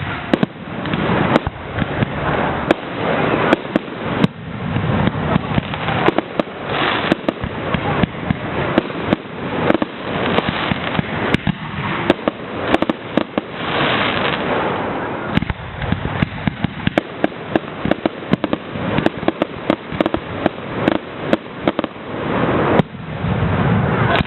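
Fireworks display: a rapid, continuous series of sharp bangs and crackles from bursting fireworks over a steady noisy rush.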